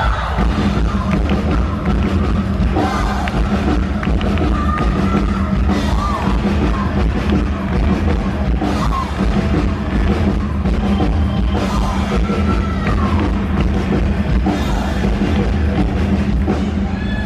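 A live rock band playing loud through the concert PA: electric guitar, drum kit and a singer, with the bass and drums steady underneath.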